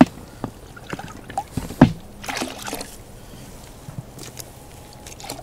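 Handling noises in an inflatable rowing boat: scattered small knocks and clicks with some water sloshing, and one sharp knock a little under two seconds in.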